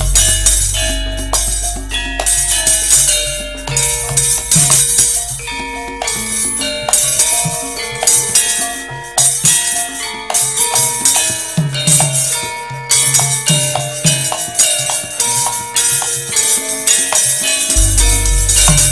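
Javanese gamelan ensemble playing a lively, loud passage: a stepped metallophone melody over drum strokes and jingling percussion.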